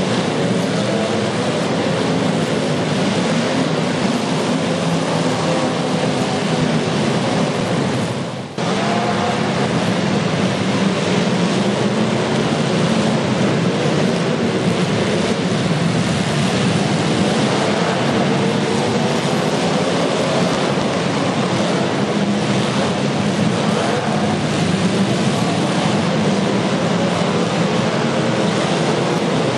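Demolition derby cars' engines running loud and revving, their pitch wavering up and down. The sound breaks off for a moment about a third of the way through.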